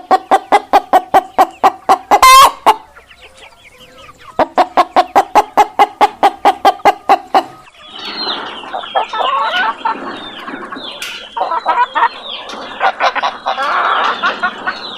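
Chicken giving a fast, even run of short pitched notes, about eight a second, twice over: a laughing-style call. From about eight seconds in, many hens cluck and cackle together.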